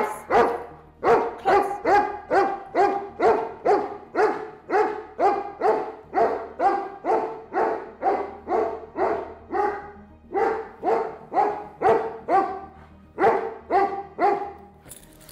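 Doberman Pinscher barking in a steady run on the 'watch' command, guarding his handler against a decoy: about two to three barks a second, pausing briefly twice and stopping near the end.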